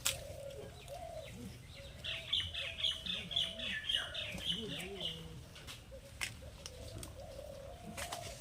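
Birds calling: a quick run of high chirps, about three a second, starting about two seconds in and lasting about three seconds, with lower cooing calls at the start and again near the end. A few sharp clicks are heard.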